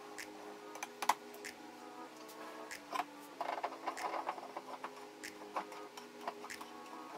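Soft background music with held notes, over scattered light clicks and knocks of wood as the handle of a wooden vise screw is turned and the wooden jaws are handled.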